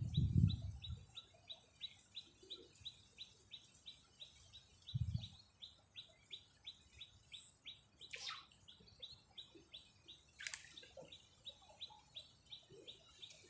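A bird chirping steadily and rhythmically in short high notes, about four a second. Two quick falling swishes come in the middle, and there are low thuds at the start and about five seconds in.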